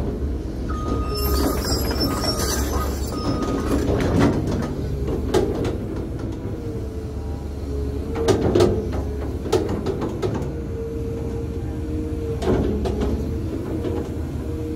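Caterpillar 320 hydraulic excavator working: the diesel engine runs steadily under load with a steady hydraulic whine, while the bucket is dragged along a soil slope. Several sharp knocks and clicks come from the bucket and boom.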